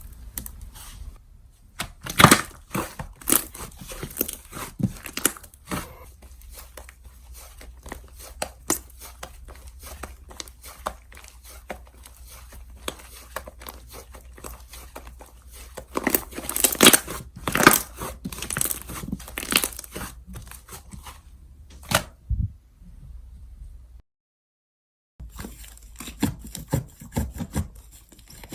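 Slime being squeezed, stretched and poked by hand, giving a stream of irregular sticky clicks and crackling pops, with louder bursts of popping twice. The sound cuts out briefly near the end.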